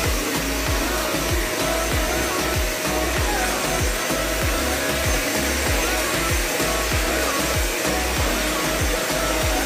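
Rowenta vacuum-and-steam floor cleaner running over tiled floor, a steady motor and airflow noise, under background music with a steady bass beat.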